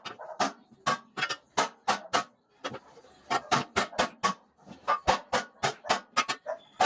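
Repeated sharp hammer blows on metal, irregular at about three or four a second, pausing briefly near the middle and ending in a louder strike.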